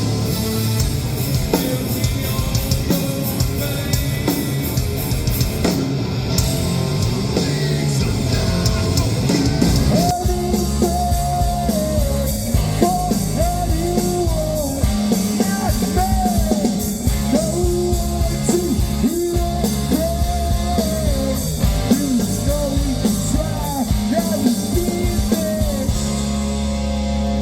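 Live hardcore band playing loud: distorted guitars, drums and vocals. About ten seconds in the sound changes, and a gliding melodic line rides over the band.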